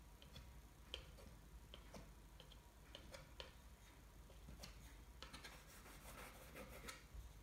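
Faint scraping and light, irregular ticks of a metal palette knife working paint on paper, growing denser in the last couple of seconds.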